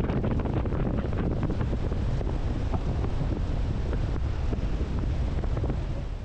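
Heavy wind rushing and buffeting the microphone aboard a speedboat under way, with the boat's engine and water noise underneath.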